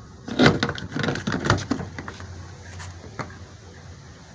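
Several knocks and clicks in the first two seconds and one more a little later: the replacement exterior door handle of a Chevy Tahoe being slid and seated into the door.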